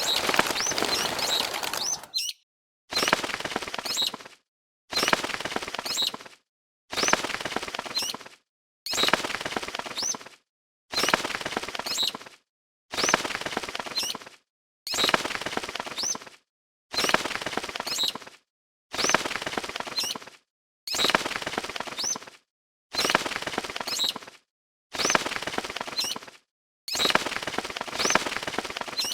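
Cartoon railway crossing's warning sound given as a harsh, noisy horror sound effect, repeating about every two seconds in bursts of about a second and a half, each with short high rising squeals.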